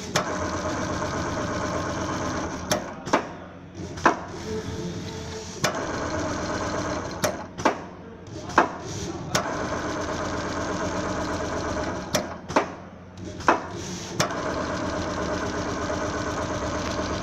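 Computer-controlled Richpeace automatic sewing machine stitching a quilted leather panel through padding: runs of steady, rapid stitching lasting two or three seconds each, broken by short pauses with sharp clacks.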